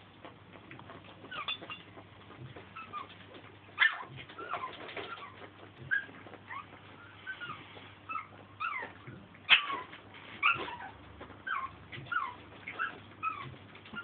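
Puppies whimpering: a string of short, high squeaks that slide up or down in pitch, at times several a second. Two sharp knocks, the loudest sounds, come about four seconds in and again past halfway.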